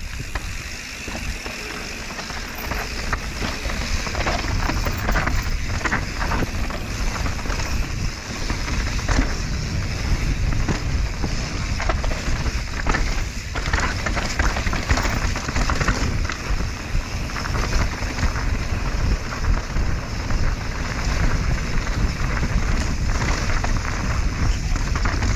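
Mountain bike riding down dirt singletrack heard from the rider's camera: a continuous rumble of wind and tyres on the trail, with knocks and rattles of the bike over bumps. It gets louder over the first few seconds as the bike picks up speed.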